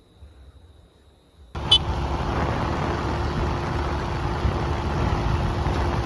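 Faint background, then about a second and a half in a sudden, loud, steady rushing noise with a low rumble sets in and holds. A sharp click comes just after it begins.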